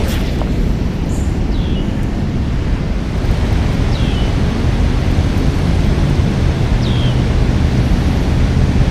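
Wind buffeting the microphone over a rushing river current, a steady rumbling hiss. A short, high, falling chirp comes three times, a few seconds apart, and a low steady hum joins about halfway through.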